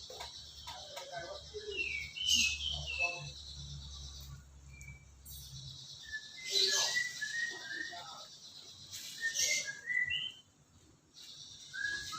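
Cinereous tit (gelatik batu) calling: several harsh, buzzy churrs alternate with quick runs of short chirping notes that fall in pitch. A low hum runs under the first half.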